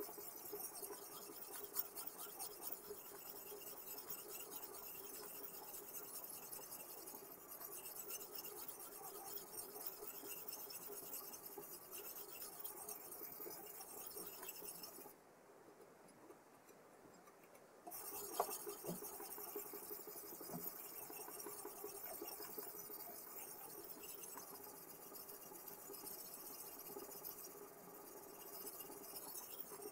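Sharpening stone of a Kosim guided sharpening system stroking along the edge of an M390 steel chef knife, a steady scraping rasp of stone on steel. It stops for about three seconds around the middle, then starts again.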